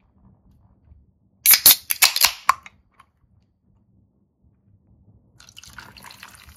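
Two aluminium beer cans being cracked open together, a quick run of sharp pops with a hiss of escaping gas. A few seconds later beer starts pouring and fizzing into glasses.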